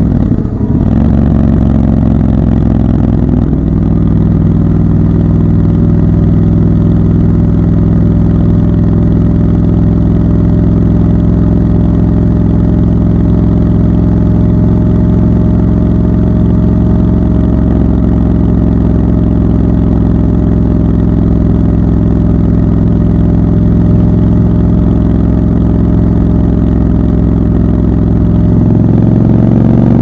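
Triumph Scrambler 1200 XC's parallel-twin engine pulling steadily at cruising speed, heard from the rider's seat. The throttle eases off briefly about half a second in, then the note holds steady and rises near the end as the bike accelerates.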